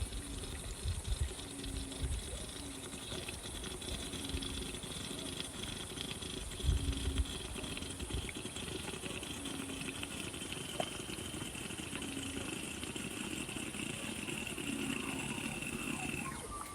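Fresh engine oil being poured from a bottle into the Suzuki Swift's oil filler: a steady high tone slowly falling in pitch that stops abruptly near the end. A faint low note repeats about every second and a half underneath, with a few soft knocks.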